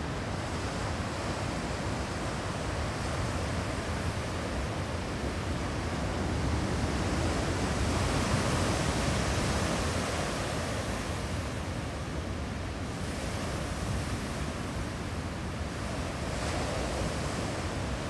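Ocean surf: waves breaking and washing up the shore in a steady rush. It swells louder about halfway through as a wave breaks close in, and swells briefly again near the end.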